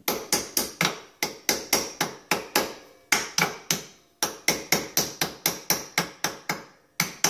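Hammer tapping repeatedly on the metal hub of an ATV's rear drum brake, about four sharp strikes a second in short runs with brief pauses, each blow leaving a short metallic ring.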